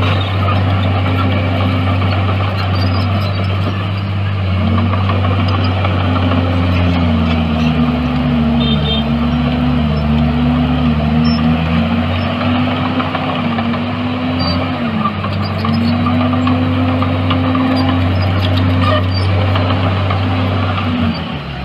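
Heavy diesel earthmoving machinery running steadily, with the engine pitch wavering as the load changes. In the middle a second engine's pitch dips and rises alongside it.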